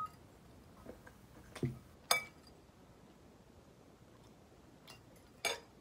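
Metal fork clinking against a glass bowl: a few short clicks and a soft knock, with the loudest, ringing clink just after two seconds and another near the end.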